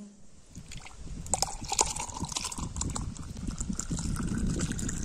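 Milky sharbat being poured in a thin stream into a tall drinking glass, a continuous splashing trickle that builds up about a second in.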